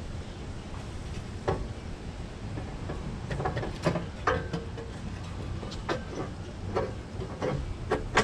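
Irregular clinks and knocks of hand tools and metal exhaust parts being handled, a few of them ringing briefly, over a low steady rumble of wind on the microphone.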